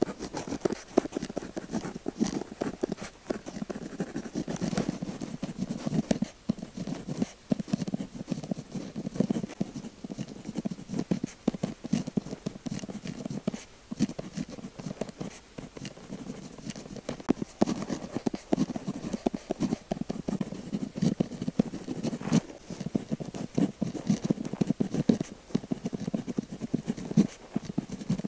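Pen tip writing on paper close to the microphone: a quick, continuous run of scratchy strokes and little taps, broken by a few brief pauses.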